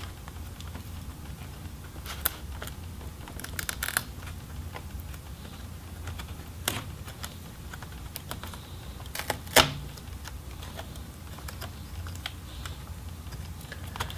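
Sparse small plastic clicks and taps as a laptop's speaker wire is worked free of its connector and cable channel, with a cluster about four seconds in and the sharpest click about two-thirds of the way in, over a low steady hum.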